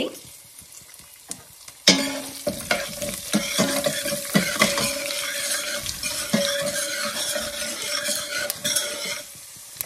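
Spices (urad dal, cumin, mustard seeds and fenugreek) sizzling in hot oil in a stainless steel pot for a tempering. From about two seconds in, a metal spoon stirs them, scraping and clinking against the pot.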